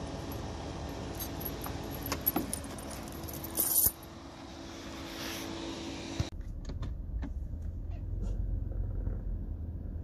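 Steel tire chains clinking and rattling as they are unhooked from a minivan's wheel, with a louder metallic jangle about four seconds in. From about six seconds the sound changes abruptly to the low rumble of the van driving on a snowy road, heard from inside the cab.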